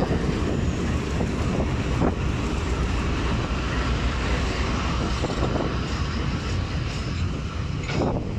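Diesel freight locomotives passing close by at slow speed, engines rumbling steadily, followed by the wagons rolling past, with a couple of sharp knocks from the running gear.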